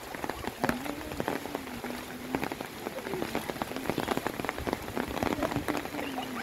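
Heavy rain falling, a steady hiss with many sharp drop strikes close by.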